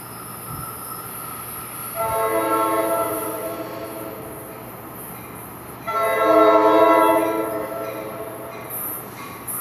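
Nathan K5LA five-chime horn on a New Jersey Transit Comet V cab car, sounded in two long blasts as the train approaches, the second longer and louder than the first.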